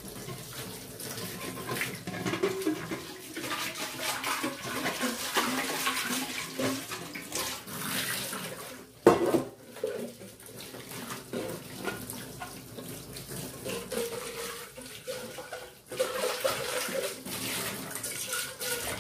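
Kitchen tap running while aluminium pots are rinsed under it in the sink, water splashing into and off the metal. About halfway through there is one sharp, loud knock, and a few lighter knocks.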